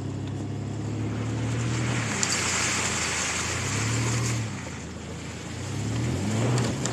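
A 2002 Chevy Blazer's 4.3-litre V6 engine running as the SUV drives, its note rising and falling a few times, with a rushing hiss from about two to four seconds in.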